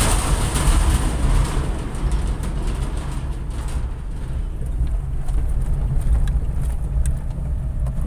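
Motor vehicle on the move: a steady low rumble of engine and road noise.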